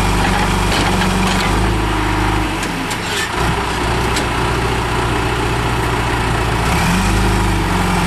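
A 1999 John Deere 310E backhoe loader's diesel engine running steadily while the machine is worked. Its engine note shifts about a third of the way in and again near the end, and a few sharp knocks come around the middle.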